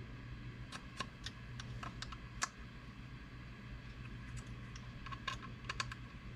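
Light, irregular clicks and taps of small engine parts and hand tools being handled, a few a second, over a steady low hum.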